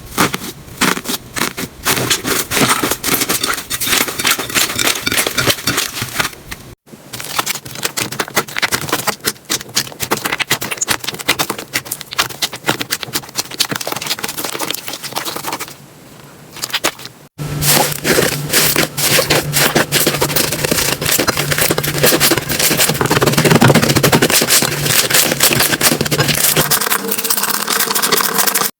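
Slime being squeezed and pressed by hand, giving a dense run of crackling clicks and pops. The sound breaks off abruptly twice and resumes with a slightly different texture.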